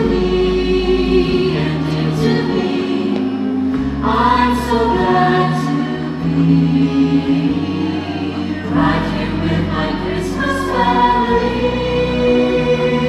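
A choir singing a Christmas song in long held notes over a musical backing, with new phrases coming in twice.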